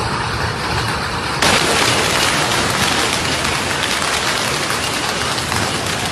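Heavy hail falling hard onto paving and walls, a dense, steady clatter of countless impacts that grows louder about a second and a half in.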